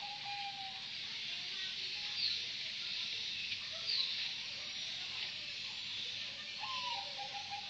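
Zebra dove (merbok) calling: a trilled coo that dips slightly in pitch and ends about a second in, then another that starts near the end. A steady high hiss runs underneath, with a few short, high, falling chirps from another bird.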